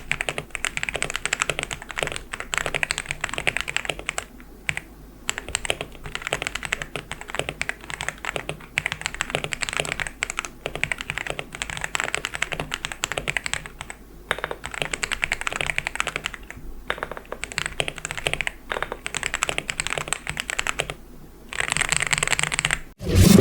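Typing on a LEOBOG Hi98C Pro mechanical keyboard with White Dragon switches: fast, continuous keystroke clatter in runs, broken by a few short pauses. Loud music cuts in at the very end.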